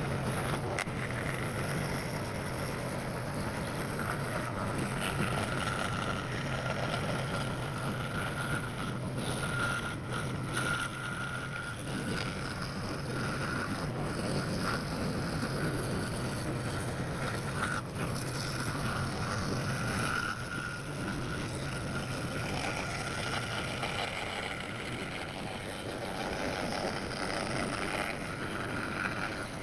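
Bandsaw running steadily, a low hum with a higher whine over a rushing noise that swells and eases a little.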